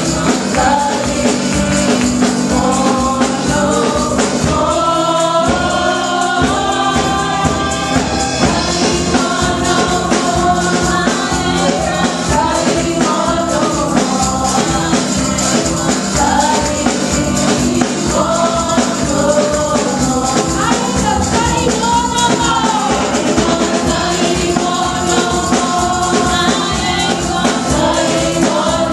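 Live gospel singing: a group of women lead a song through microphones, with music playing continuously and no break.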